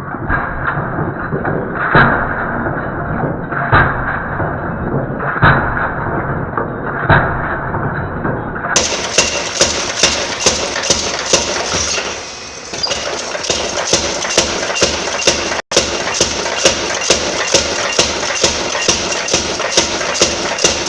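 Hammer blows on hot steel at the anvil while forging a punch from 1045 bar stock. First four heavy blows about two seconds apart, then a steady run of faster blows, about two or three a second, with a light metallic ring, over a constant background rush.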